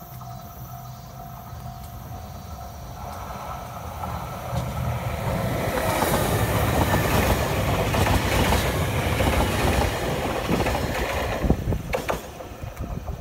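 JR East E721-series electric train passing close by. Its rumble and wheel noise build from about four seconds in, stay loud while the cars go past, and fade after about twelve seconds, with a few sharp clacks of wheels over rail joints near the end.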